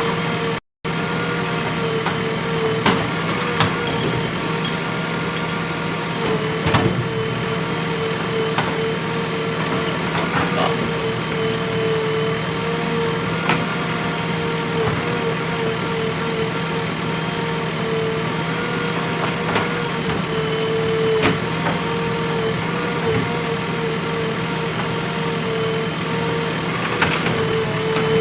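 JCB 3DX Plus backhoe loader's diesel engine running steadily with a constant whine, with occasional sharp knocks. The sound drops out briefly for a moment under a second in.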